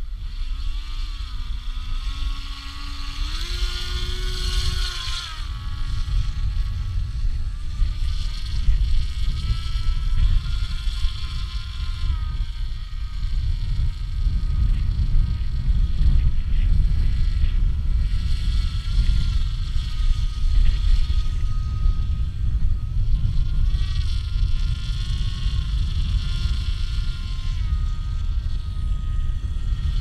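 RC model autogyro's motor and propeller whining as it takes off and flies, the pitch rising over the first few seconds and then going up and down with the throttle. Heavy wind rumble on the microphone runs under it.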